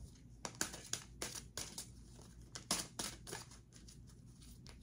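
A deck of tarot cards being shuffled by hand: a string of quiet, irregular card slaps and rustles, a few a second.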